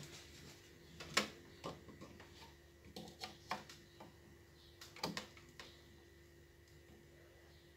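Light, irregular clicks and taps as a component and soldering iron are handled against a circuit board. The clicks come a few at a time through the first six seconds, then thin out, with a faint steady hum underneath.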